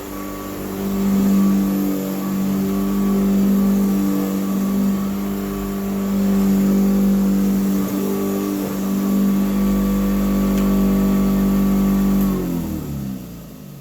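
Early-1950s Hoover Model 28 upright vacuum cleaner running with a steady motor hum, with a little extra brush noise that the owner puts down to a worn commutator that is no longer flat. About twelve seconds in it is switched off and the motor winds down, its pitch falling away.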